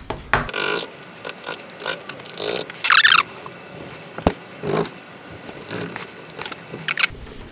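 Steel chisel paring and scraping wood out of a shallow latch mortise in a soft pine door edge: a run of short, irregular scrapes, one of them squeaking about three seconds in, and a single sharp click just after four seconds.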